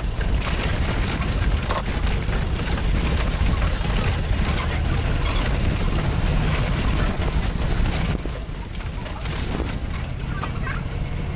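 Military vehicle driving along a bumpy dirt track: a steady low engine and road rumble, with many knocks and rattles from the body jolting over the ruts. It eases off somewhat about two-thirds of the way through.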